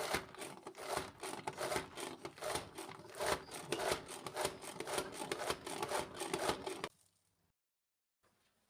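Busy rubbing and rustling kitchen handling noise, a dense run of quick scrapes and crinkles that cuts off abruptly about seven seconds in.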